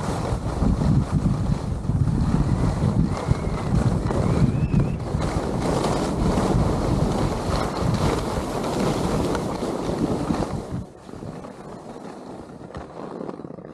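Wind buffeting the microphone and skis running over groomed snow during a fast descent, a loud steady rush that drops off sharply about eleven seconds in as the skier slows.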